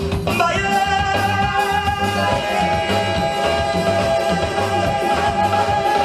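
Live sega music: a male singer holds one long note from about half a second in, over a band of hand drum, keyboard and guitar keeping a steady beat.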